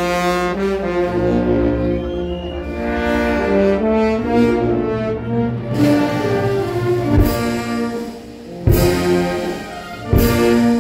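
Procession brass band playing a slow funeral march in held brass chords. Near the end come three heavy percussion strikes, about a second and a half apart.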